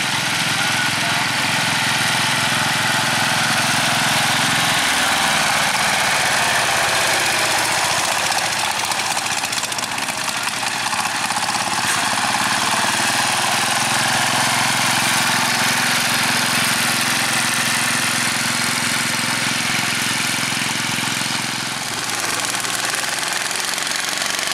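Single-cylinder diesel engines of two-wheel walking tractors running hard under load with a fast, even chugging beat. The engine note changes pitch about five seconds in and again near the end.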